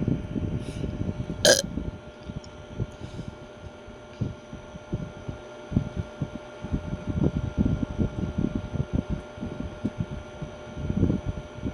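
A single sharp crack about one and a half seconds in, a clip struck by the spinning ceiling fan's blades, over an irregular low rumble of fan air buffeting the microphone.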